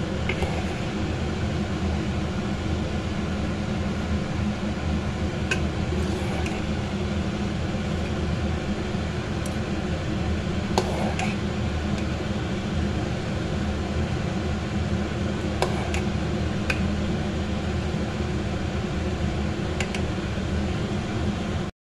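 Steady low kitchen hum with a few light clicks of a ladle against the steel pot and bowl as thick kheer is ladled out.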